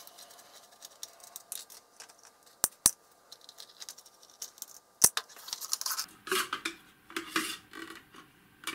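Small screwdriver turning out the screws at the rear of a metal altimeter case, with three sharp metallic clicks, two close together about two and a half seconds in and one about five seconds in. From about six seconds, scraping and rubbing as the metal case is slid off the instrument's mechanism.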